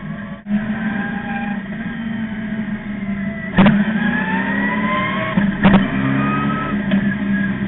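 Street stock race car's crate engine heard from inside the cockpit, pulling with its pitch rising midway through. Two sharp knocks cut through it, about three and a half and five and a half seconds in.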